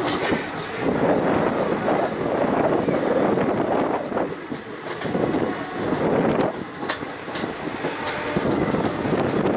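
Indian Railways passenger train running on the track, heard from aboard: a steady rumble of wheels on rail with wind noise on the microphone, broken by a few sharp clicks from the wheels.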